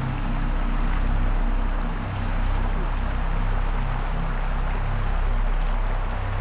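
Steady rushing of water over a rocky stream, with a low steady hum underneath.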